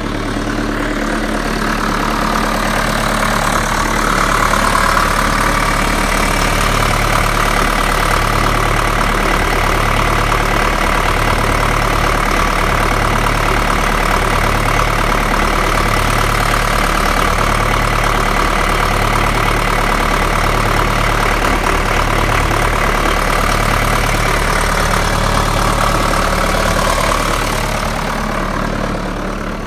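Backhoe's diesel engine running steadily just off idle. It grows a little louder a few seconds in and eases back down near the end.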